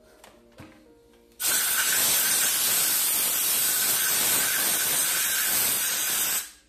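Handheld steam cleaner jetting steam: a loud, even hiss that starts abruptly about a second and a half in and cuts off sharply about five seconds later.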